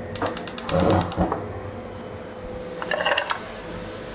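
Cumin seeds crackling in hot ghee in a wok: a quick run of sharp crackles in the first second and another short cluster about three seconds in, as the seeds begin to fry.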